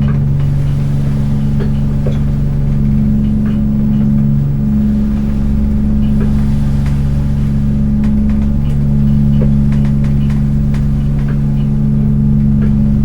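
Fishing boat's inboard engine idling steadily while moored, a deep even hum with a slowly wavering drone and scattered light ticks and rattles.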